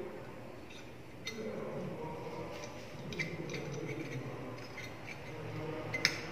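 Small metal clicks and taps of hand tools and wire being handled while a replacement wire is fitted in place of a flat iron's blown thermal fuse, with one sharper click near the end.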